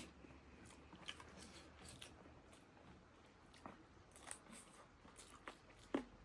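Faint eating sounds: chewing and biting with scattered small clicks, one sharper click at the start and another near the end.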